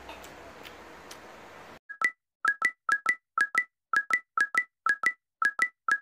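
Faint room sound with a few light clicks, cut off about two seconds in by an electronic outro jingle: short synthesized beeps at two pitches, coming in quick pairs about twice a second.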